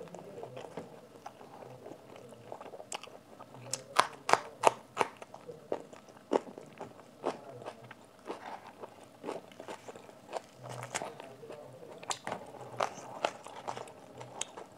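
Close-up chewing of a mouthful of fried puri, with irregular crisp crunches and wet mouth clicks, loudest in clusters about four seconds in and again near the twelve-second mark.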